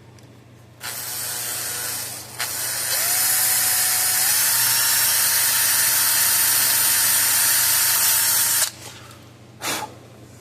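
Small electric drill boring a hole through a circuit board: it starts about a second in, breaks off briefly, then runs on with its motor pitch climbing and then holding steady before stopping near the end.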